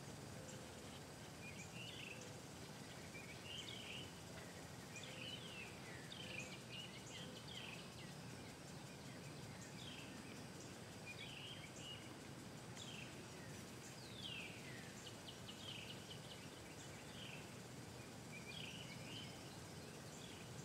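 Faint outdoor ambience: a bird repeats short chirping phrases with falling notes every second or two over steady background noise.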